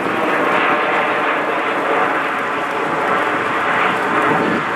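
Jet noise from a formation of Aermacchi MB-339 jet trainers, each with a single Viper turbojet, flying overhead. It is a steady rushing noise that holds at one level.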